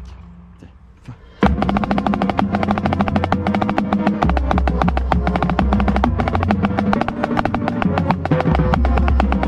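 Marching band music dies away into a short lull, then a sharp hit about a second and a half in starts a new passage: rapid snare drum strokes, heard close up from the center snare's position, over held low notes from the band.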